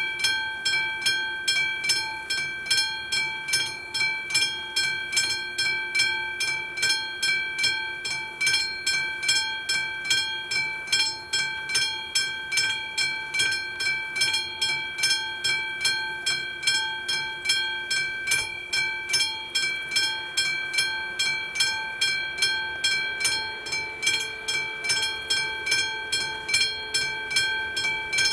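Railway level crossing warning bell ringing steadily, about two strikes a second, while the crossing's red warning lights flash to signal an approaching train. A faint low hum underneath rises slightly in pitch near the end.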